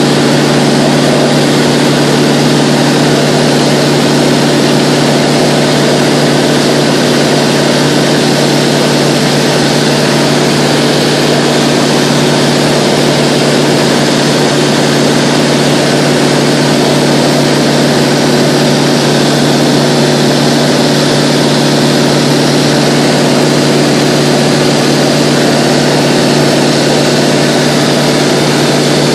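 Steady cabin drone of a Mooney 201's four-cylinder Lycoming IO-360 engine and propeller at cruise power (about 55%), with a constant hiss of air rushing past the cabin.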